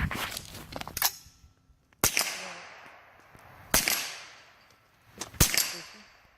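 Three single shots from a Smith & Wesson M&P15-22 semi-automatic .22 LR rifle, about a second and three quarters apart, each trailing off in a long echo. Before the first shot, about a second of clicking and rustling.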